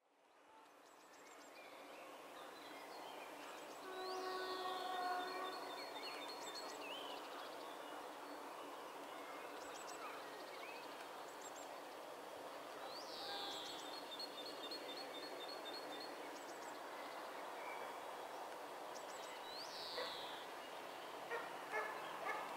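Trackside ambience: birds singing with repeated sweeping chirps and trills over a steady distant hum. About four seconds in, a distant train horn sounds once, a single held note for about a second and a half. A few short knocks come near the end.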